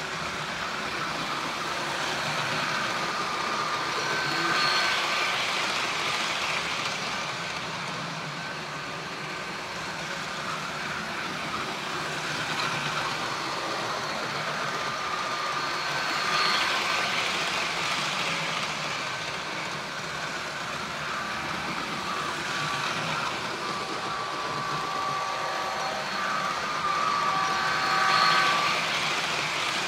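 Rapido F40PH model diesel locomotive running laps on the track, its wheels running on the rails under the steady diesel engine sound from its sound decoder. The sound swells three times, about twelve seconds apart, as the train passes close.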